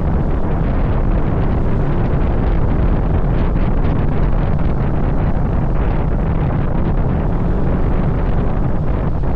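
Wind buffeting the microphone over a steady low rumble from a moving vehicle, unbroken throughout.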